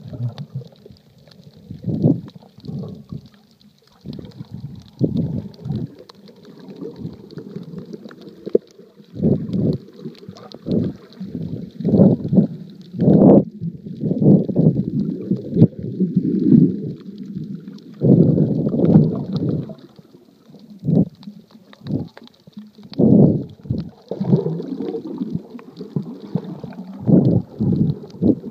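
Muffled underwater rumbling and gurgling of water moving around an iPhone in a waterproof Lifeproof case held underwater, in irregular surges a second or two long, with a faint steady hiss high above.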